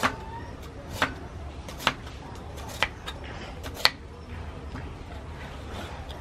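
Crinkle-cut knife chopping a carrot on a wooden chopping board: five sharp chops about a second apart, stopping about four seconds in.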